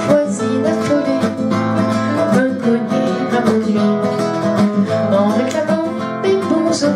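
Two acoustic guitars, one a classical guitar, strumming and plucking a rumba accompaniment in a minor key.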